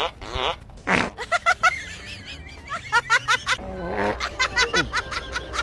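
Comic fart sound effects: runs of short, squeaky, pitched fart noises in quick succession, with a warbling tone between them and a falling squeal near the end.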